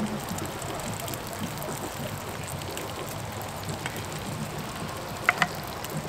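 Sausages sizzling steadily in a frying pan on a Trangia Mini spirit stove, with two sharp clicks close together about five seconds in.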